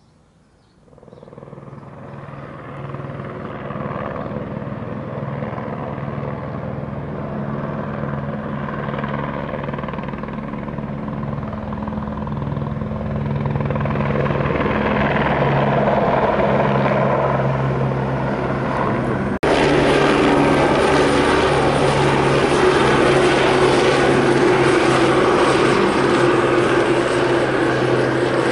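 Crop-spraying helicopter flying, its rotor and engine sound fading in about a second in and growing steadily louder. About two-thirds of the way through it jumps suddenly louder and brighter.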